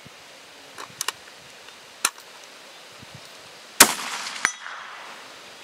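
A few small clicks, then a single shot from a Remington 700 bolt-action .223 rifle about four seconds in. About two-thirds of a second later comes a short sharp clang, the bullet striking the AR500 steel target downrange.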